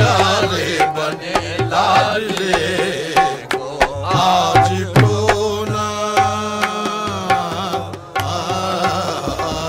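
Qawwali music: voices singing in a wavering, ornamented melody over tabla and sharp percussive strokes, with some long held notes midway.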